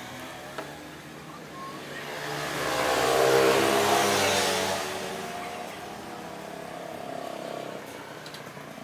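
A motor vehicle passing by: engine sound that swells to a peak about three to four seconds in, then fades away.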